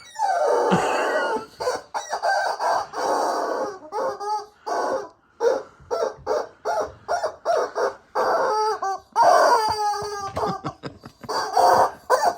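Loud squawking toy chicken squeezed again and again by a Staffordshire bull terrier biting it: a rapid string of strained squawks that break off and start again over and over.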